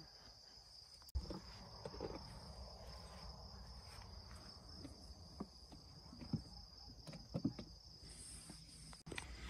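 Crickets keeping up a faint, steady high-pitched trill, with a sharp click about a second in and another near the end.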